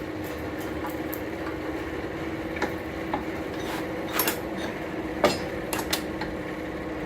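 Steady machine hum from the shop, with a few short, light metal clinks and knocks as steel tools and the workpiece are handled.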